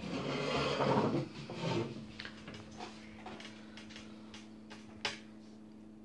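Handling noise of a pH test kit's plastic pieces on a tabletop: a burst of rubbing and rustling in the first two seconds, then light plastic clicks and taps, with one sharper click about five seconds in.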